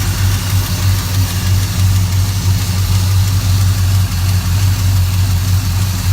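Car engine on a Holley Sniper throttle-body EFI, idling steadily on a cold start after sitting overnight. It runs smoothly, with no hesitation or rough idle.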